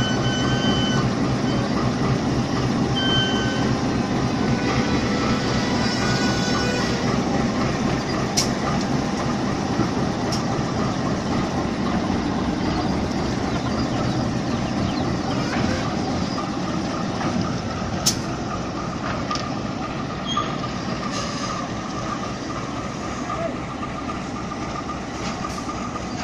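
CC 201 diesel-electric locomotive's engine running steadily as the locomotive creeps slowly onto a turntable. Brief high wheel squeals come from the rails in the first few seconds, and a few sharp clanks are heard later.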